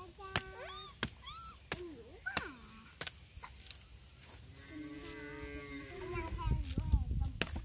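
Young monkeys making high squeaks and chirps that sweep upward, then one longer, slightly falling call in the middle. Sharp cracks and clicks come in between, in keeping with sugarcane being split and bitten.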